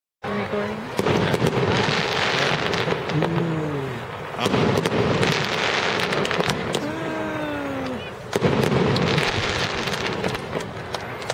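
Aerial fireworks bursting, with dense crackling and popping in three waves. Between the waves, people's voices call out with falling pitch.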